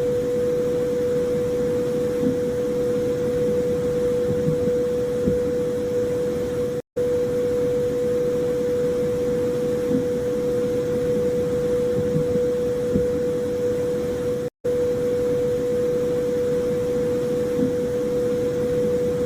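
Electronic space-ambience drone presented as the sound of Saturn's moon Narvi: a steady hum near 500 Hz over a rushing hiss, with faint low blips. It cuts out for an instant twice, about eight seconds apart.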